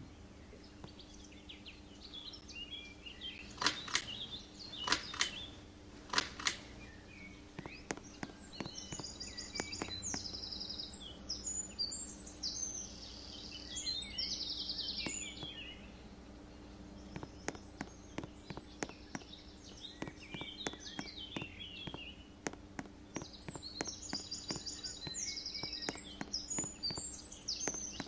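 Small birds chirping and trilling in repeated high phrases, with sharp clicks, over a faint steady low hum.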